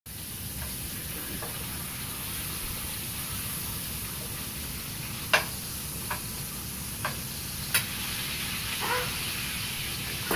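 Bacon sizzling steadily in a frying pan, with four sharp clicks of metal tongs against the pan about halfway through.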